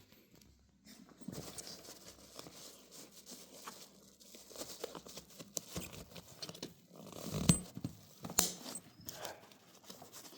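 Handling noise from a hard-sided rolling suitcase: scattered clicks, knocks and rustles, with the sharpest knocks about seven and a half and eight and a half seconds in.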